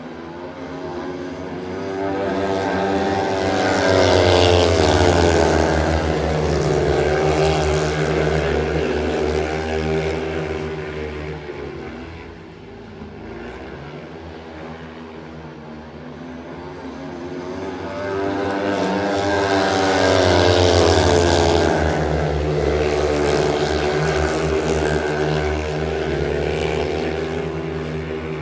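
Several speedway bikes, 500 cc single-cylinder methanol-burning engines, racing at full throttle around the oval. The engines swell loudly as the pack passes, fade as it goes round the far side, and swell again on the next lap about sixteen seconds later, their pitch sliding as they approach and move away.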